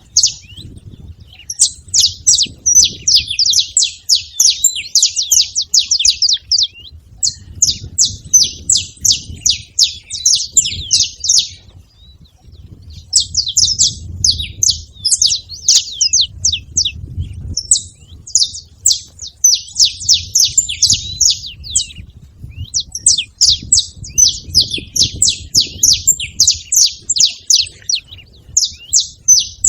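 Saffron finches singing: phrases of rapid, high chirping notes about two to three seconds long, repeated with short pauses, over a faint low rumble.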